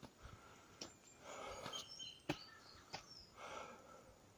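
A man's audible breathing, two breaths about two seconds apart, with a few soft clicks and faint short bird chirps.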